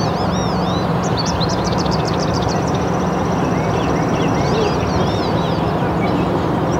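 Songbirds singing: repeated short chirps, a quick run of notes about a second in, then a steady high trill lasting a couple of seconds, over a steady rushing background noise with a low hum.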